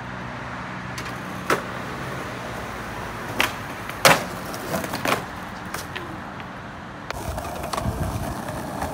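Skateboard wheels rolling on rough asphalt, with several sharp board clacks of pops and landings, the loudest about four seconds in. A low steady hum sits under the first couple of seconds.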